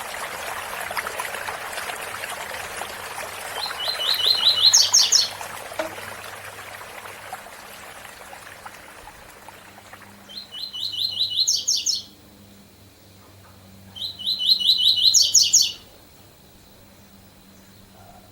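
Double-collared seedeater (coleiro) singing the 'tui-tui' song in three phrases, each a quick run of repeated notes ending in a few higher notes. Waterfall rushing noise sits behind the first phrase and fades away before the second.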